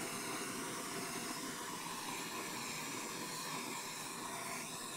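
Handheld gas torch burning with a steady hiss, its flame played over heat-shrink tubing on a battery cable end to shrink it.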